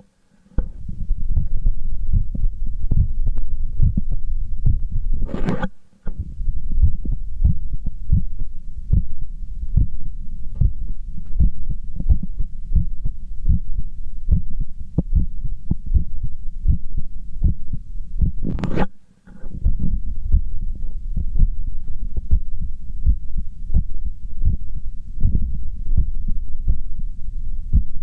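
A man's heartbeat heard through a stethoscope on the chest, beating fast and evenly after exercise. Twice it breaks off for a moment with a short rubbing noise and a brief drop-out, about five and a half seconds and nineteen seconds in.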